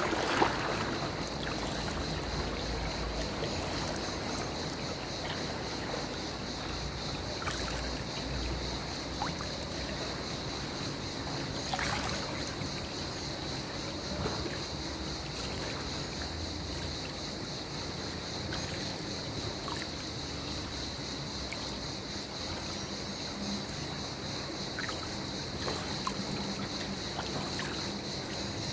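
Swimming-pool water lapping and trickling at the pool edge, with a splash at the very start as a swimmer pushes off from the ladder. A steady high-pitched hiss runs underneath.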